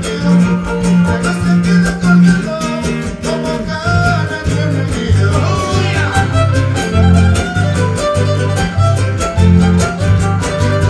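A huapango band playing live for dancing: a fiddle carries the melody over a moving bass line and a steady, even beat.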